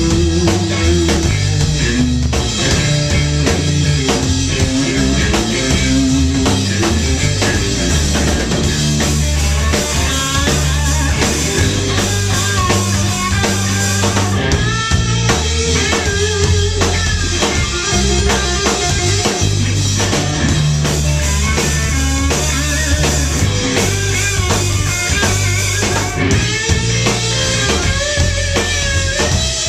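Live blues-rock band playing: a Stratocaster-style electric guitar plays a lead line of bent, wavering notes over a drum kit and bass guitar.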